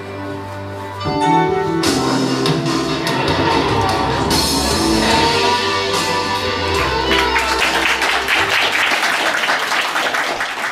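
Music with a sustained bass line plays. In the last few seconds, as the bass fades, audience applause rises over it.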